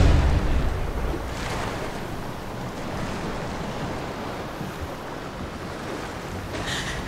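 Open-sea waves washing against a capsized boat's hull, with steady wind. A wave surges loudly right at the start and fades over the first second, and a smaller one follows about a second and a half in.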